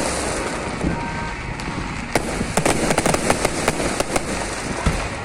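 Fireworks display going off: a steady rumbling hiss with a quick run of sharp crackling pops starting about two seconds in.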